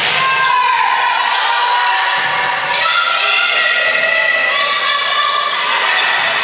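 Volleyball court sounds in a gym: athletic shoes squeaking on the court floor, a few sharp hits of the ball, and voices calling out.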